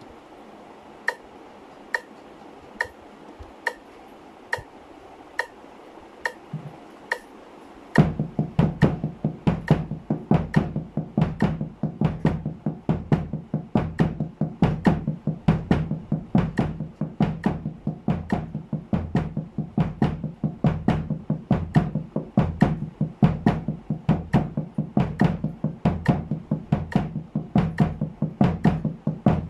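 Metronome clicking steadily at 70 bpm, then about eight seconds in, fast drum practice starts: double strokes with sticks on a cloth-muffled snare, with bass drum kicks on the last two sixteenth notes of each beat.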